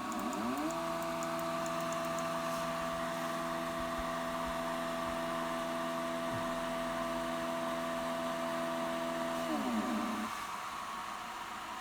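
Stepper motors of a DIY CNC router driving an axis during homing. The whine rises in pitch as the motor speeds up, holds steady for about nine seconds, then falls as it slows. It continues briefly at a lower pitch near the end, as a slow homing approach.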